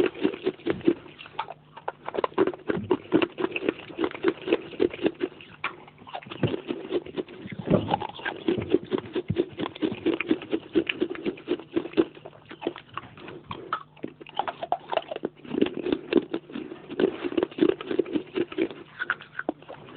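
Close-up chewing of pieces of baked clay pot: runs of rapid crunching and crackling bites, broken by a few short pauses.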